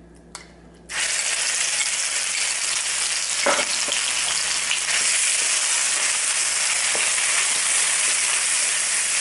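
Red curry paste hitting hot oil in a nonstick wok: a sizzle starts suddenly about a second in and settles into steady frying. There is a light knock partway through, and near the end the paste is being stirred with a wooden spatula.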